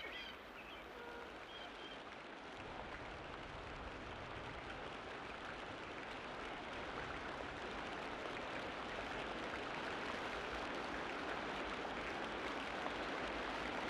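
Surf washing up a sandy beach: a steady rush that grows slowly louder. A few short bird chirps come in the first two seconds.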